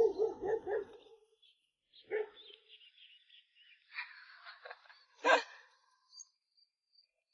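Dog barking: a quick run of barks in the first second, then a single bark about two seconds in and a sharper, louder one a little after five seconds.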